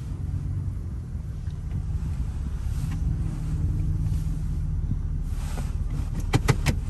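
Car on the move: a steady low rumble of engine and road noise, with wind noise. Near the end comes a quick run of several sharp clicks.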